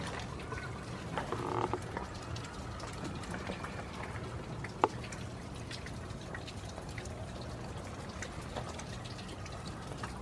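Rain falling, with many scattered drip ticks and one sharper tick a little before the middle.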